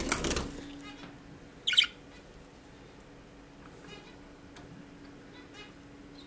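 Budgerigar giving one short, sharp squawk about two seconds in, with a few faint rapid chattering ticks later on. A brief rustling burst comes right at the start.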